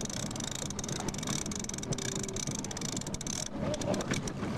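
A fishing boat's motor running steadily at low trolling speed, a low even hum under a hiss that drops away about three and a half seconds in.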